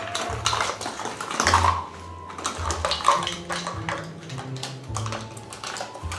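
A set of measuring spoons rattling and clicking as they are handled and sorted to find the tablespoon, with many quick, irregular clicks and clatters.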